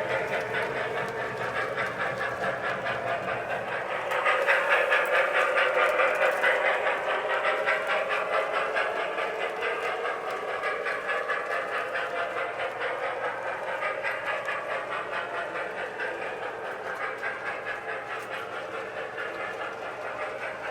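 Marx toy electric train running around its track, its wheels and motor clattering in a fast, even rhythm. It gets louder about four seconds in as it comes near, then slowly fades.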